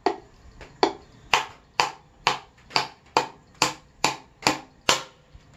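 Claw hammer driving a nail into the wooden corner joint of a five-frame nucleus hive box. About a dozen steady blows land roughly two a second, the first couple lighter taps.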